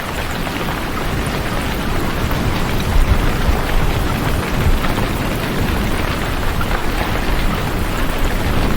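Steady heavy rain, with a low rumble swelling about three seconds in.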